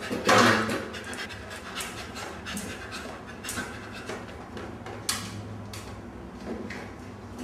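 A dog panting in quick, repeated breaths, with a louder noisy burst just after the start.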